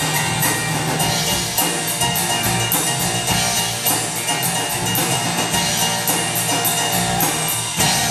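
Live worship band playing an instrumental passage: a drum kit keeps a steady beat on the cymbals, about two strokes a second, over sustained chords, with no singing.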